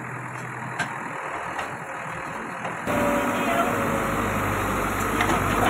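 Diesel engines of a backhoe loader and a stuck truck running steadily. About three seconds in, the sound jumps abruptly louder, with more low rumble.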